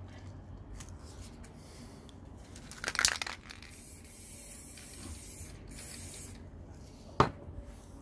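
Aerosol spray-paint can hissing in short bursts, with a loud crackle about three seconds in as a pressed sheet is peeled off the wet black paint. A single sharp knock near the end as the can is set down on the table.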